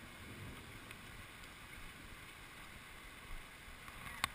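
Steady low rumble of wind and movement on a body-worn camera's microphone, with a single sharp click near the end.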